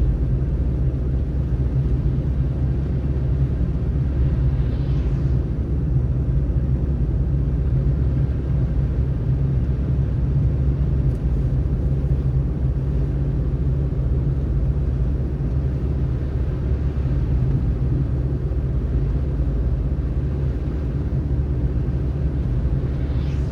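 Steady low rumble of a car driving on a snowy road: engine and tyre noise. Two faint brief swishes come through, about five seconds in and near the end.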